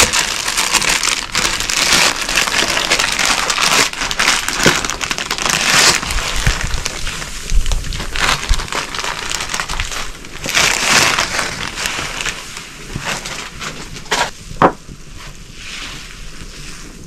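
Plastic noodle packet crinkling and crunching as it is torn open and the dry noodles inside are handled, followed by a few sharp clicks near the end.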